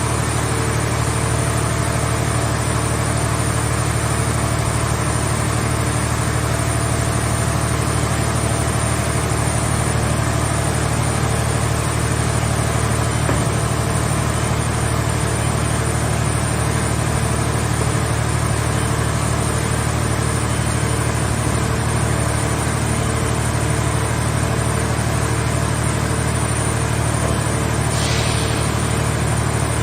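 Hydraulic power unit of a vehicle shell baler running steadily, an even low engine drone. There is a short hiss about two seconds before the end.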